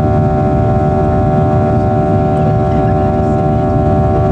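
Cabin noise of a Boeing 737-800 in the climb, heard from a window seat over the wing: its CFM56-7B engines give a steady roar with several steady whining tones from the fans.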